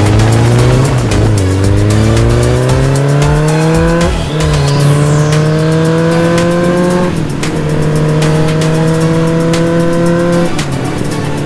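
A high-revving engine accelerating hard through the gears. Its pitch climbs steadily, then drops at three upshifts, about four seconds in, about seven seconds in and near the end, with a sweeping whoosh around the first shift.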